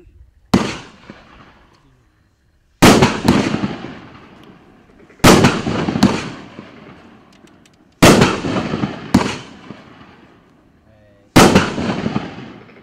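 A Bad Hair Days 500 g, 11-shot consumer fireworks cake firing shot after shot. There are about eight sharp bangs, mostly in pairs every two to three seconds, each trailing off over a second or two as the shell bursts high up.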